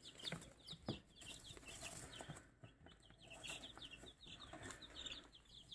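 Baby chicks peeping: a run of short, high chirps, many in quick succession, from day-old chicks just put into a brooder.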